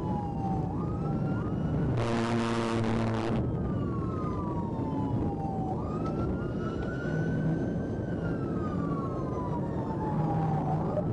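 Police car siren wailing, its pitch sliding slowly down and then quickly back up, over steady engine and road noise. About two seconds in, a loud horn blast cuts in for over a second.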